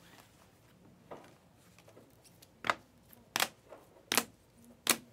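Rigid plastic card holders clacking against each other as cased trading cards are flipped through one by one: four or five sharp clicks about a second apart.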